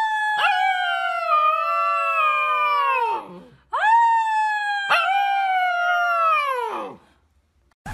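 Husky-type puppy howling: two long howls, each sliding slowly down in pitch and tailing off, with a brief crack in the voice about half a second into each.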